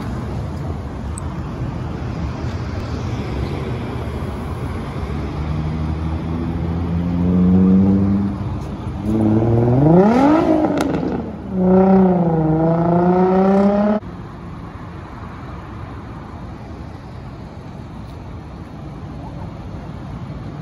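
Steady city traffic, then a vehicle engine revving up hard through the gears. Its pitch climbs, falls back at each shift and climbs again, then the sound cuts off suddenly about two-thirds of the way through, leaving quieter traffic noise.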